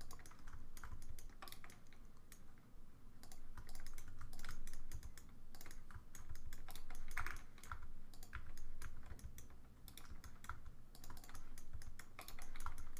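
Computer keyboard and mouse clicking in irregular short runs of taps, as keyboard shortcuts and selections are entered while working in 3D modeling software.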